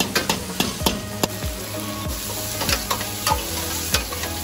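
Metal ladle scraping and knocking against a wok as food is stir-fried over a gas flame, with sizzling underneath. The knocks come irregularly, several times a second at first.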